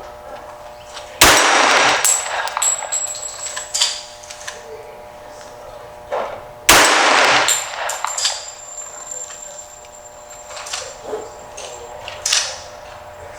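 Ithaca World War II 1911 pistol in .45 ACP firing two loud shots about five and a half seconds apart at steel plates. Smaller sharp cracks and a thin high ringing come in between.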